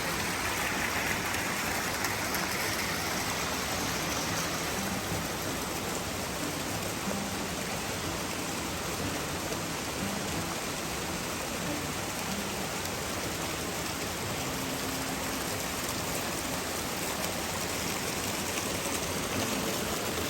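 Mountain stream rushing over rocky cascades: a steady, even rush of water with no let-up.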